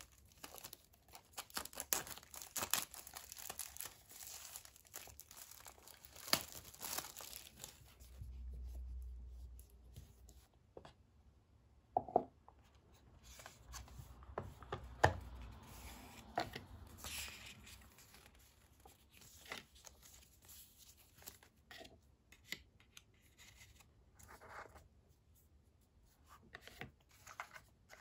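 Paper and cardboard packaging of an Apple AirPods box tearing and rustling as the box is unsealed and opened, with cardboard inserts scraping and sliding out of the tray. Scattered sharp clicks and taps, and a few dull bumps, come from handling the box.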